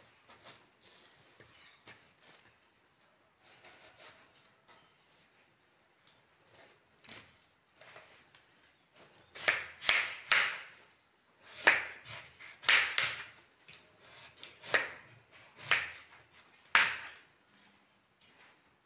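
Kitchen knife cutting through watermelon rind and flesh on a plastic cutting board: a run of short cutting strokes, faint at first, then about eight louder ones in the second half.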